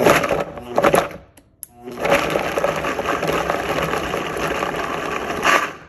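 Countertop blender on its lowest speed coarsely chopping chunks of onion, carrot and celery: two short bursts, then a steady run of about three and a half seconds that stops suddenly near the end.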